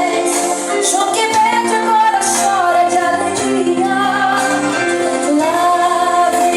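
Music with a woman singing a slow melody over sustained instrumental backing.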